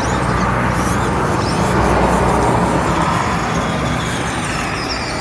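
Axial SCX24 Deadbolt 1/24-scale RC crawler's small electric motor and geared drivetrain whirring steadily as it crawls over the course.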